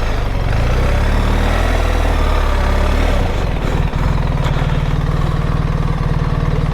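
BMW R 1300 GS Adventure's boxer-twin engine running, its pitch rising and falling over the first few seconds as the throttle is worked, then holding a steady note from about four seconds in.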